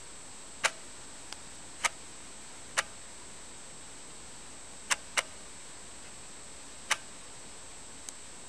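Scattered sharp clicks, about eight of them at uneven intervals, two in quick succession about five seconds in, over a steady hiss with a faint high whine.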